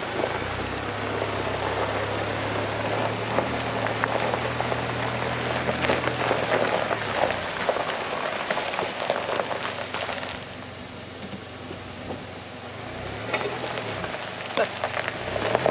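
Pickup truck rolling slowly along a gravel road, tyres crackling and crunching over the stones above the low hum of its 2.7 L turbo engine. The noise eases off for a few seconds past the middle, then picks up again.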